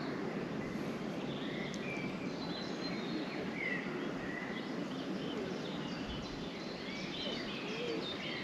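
Small birds chirping, many short calls one after another, over a steady background hiss of open-air noise.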